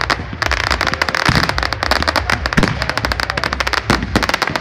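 Aerial fireworks going off in quick succession: a dense run of bangs and crackles, many per second.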